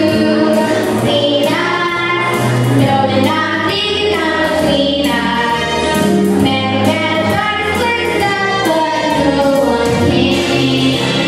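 Two young girls singing a duet into handheld microphones, with instrumental accompaniment underneath.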